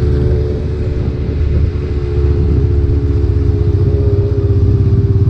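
Motorcycle engine running at a steady cruise with wind and road rumble, easing off slightly about two seconds in and then picking up again.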